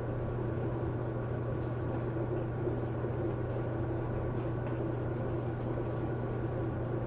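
Steady low machine hum with a few faint steady tones above it, and scattered faint light clicks now and then.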